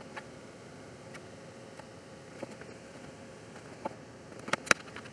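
Light clicks and taps of a circuit board and a small plastic socket being handled and set in place on a bench. Two sharper clicks close together near the end are the loudest.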